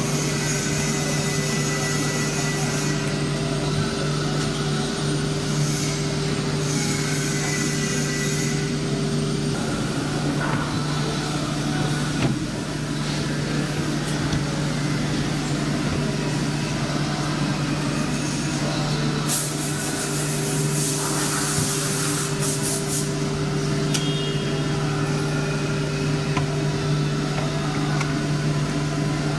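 Woodworking panel machinery running with a steady hum, with short bursts of air hiss about two-thirds of the way through.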